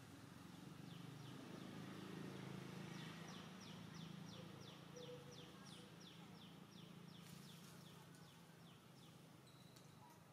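Faint outdoor ambience with a low steady rumble, over which a bird calls a long series of short, high, down-slurred notes, about three a second, from about a second in until near the end.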